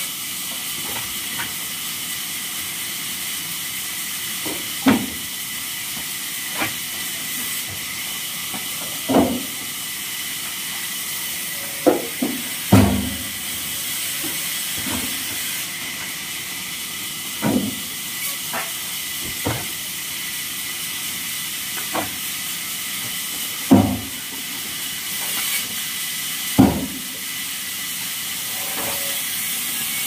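Wooden offcuts and slabs knocking and clattering as they are tossed into and stacked in a pickup truck's load bed, about a dozen separate knocks spread irregularly, over a steady high hiss.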